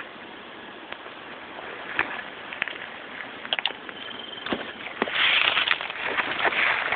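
Footsteps through dry undergrowth: twigs snapping and leaves rustling, scattered snaps at first, then a dense, louder rustling from about five seconds in.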